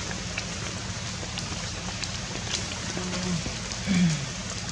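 Steady rain hiss with scattered drop clicks. About four seconds in comes a brief low voice-like sound that falls in pitch, the loudest moment.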